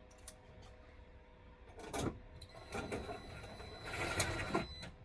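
Hands handling and fitting parts: a few clicks and three bouts of rubbing and scraping, the last and longest with a faint high whine.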